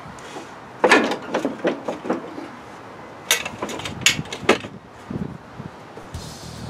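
Clanks and knocks of steel parts being handled while a support rod and pin are fitted to a Sears snow plow's mount: a cluster about a second in, then several sharp knocks between about three and four and a half seconds in.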